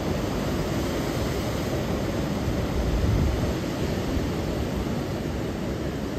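Atlantic surf breaking on a rocky volcanic shore: a steady rush of churning water with a deep rumble that swells about three seconds in as a wave crashes.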